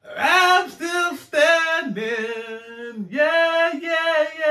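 A man singing unaccompanied, holding long notes that dip and slide between pitches.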